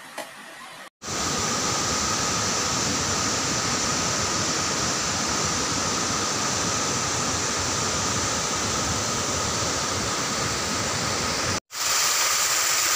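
Waterfall: water rushing steadily over rocks. It cuts in suddenly about a second in and breaks off for a moment near the end before continuing.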